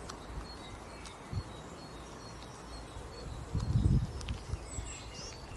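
Outdoor ambience: faint high bird chirps over a low rumble, with short low rustling bursts about a second and a half in and again about four seconds in.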